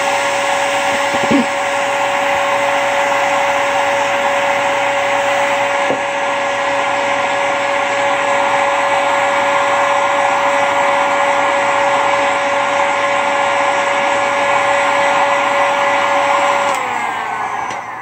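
1500 W electric heat gun running steadily: a fan whine over rushing air. Near the end it is switched off and the whine falls as the fan spins down.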